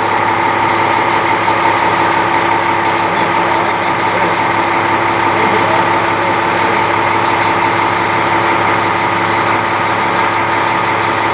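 Fire engine's diesel engine idling steadily at an unchanging pitch.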